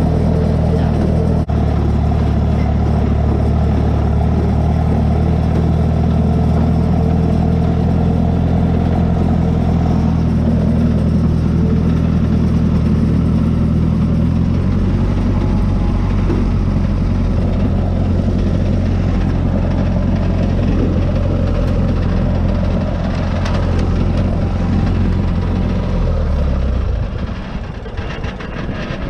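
Farm tractor engine running steadily. Its note drops to a lower, deeper hum about halfway through, and the engine sound falls away near the end.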